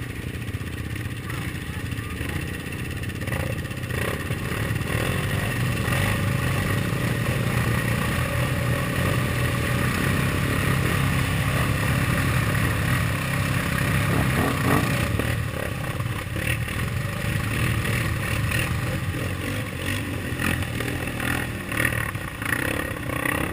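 ATV engines running steadily while riding through mud, heard through a helmet-mounted camera. The engine note builds over the first several seconds and eases slightly in the second half.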